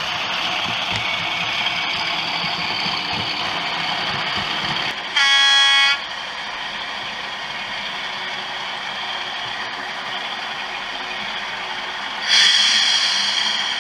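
Sound-fitted OO gauge model locomotive running, its DCC sound decoder giving a steady running sound. A single horn blast of about a second comes roughly five seconds in, and a brighter burst that fades away comes near the end.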